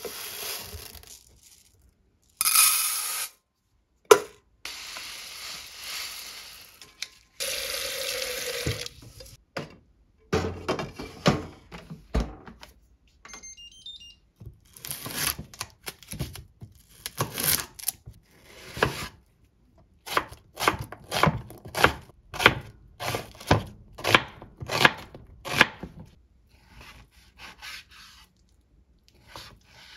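Kitchen sounds: water running from a tap in a few stretches, then irregular knocks and clatter of handling. After that comes a kitchen knife slicing an onion on a wooden cutting board in steady strokes, about two cuts a second.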